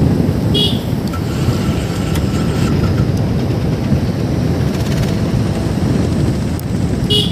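Motorcycle running at road speed, its engine rumble mixed with wind buffeting the microphone.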